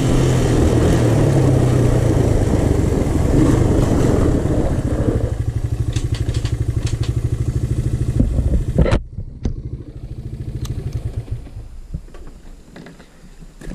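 Honda TRX125 quad's single-cylinder four-stroke engine running under the rider, settling to a slow pulsing idle about five seconds in, then stopping abruptly about nine seconds in, with a few light clicks after.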